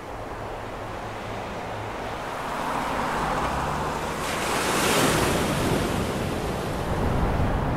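Ocean surf and wind: a steady wash of waves that builds slowly and swells to a crest about halfway through.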